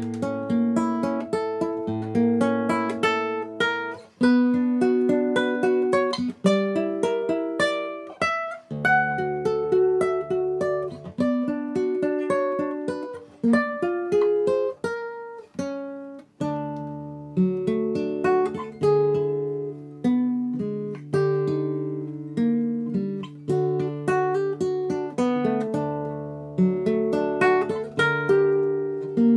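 Cutaway nylon-string classical guitar played solo fingerstyle: flowing plucked arpeggios and melody, with a few brief breaks between phrases.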